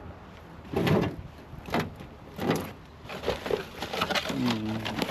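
Handling junk in a kerbside pile: three loud knocks or thumps as items are shifted, the first about a second in, then a quicker run of small clicks and rattles as the pile is rummaged through.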